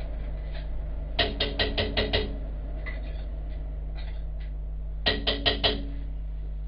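A metal utensil rapped quickly against a cooking pot, each knock ringing briefly: a run of six knocks, then after a pause a run of four.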